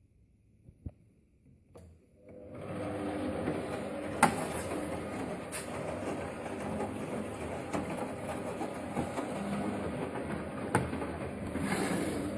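Siemens washing machine starting up after near silence, a little over two seconds in, then running steadily with a mechanical hum and a few sharp clicks.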